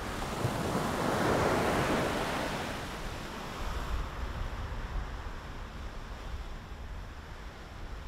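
A rushing noise, like surf, that swells to a peak about a second and a half in and then slowly ebbs away, with a low rumble underneath from about halfway through.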